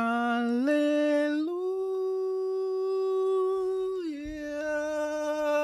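A man's voice holding one long sung note, stepping up in pitch twice in the first second and a half, holding steady, then sliding down to a lower note about four seconds in and holding it.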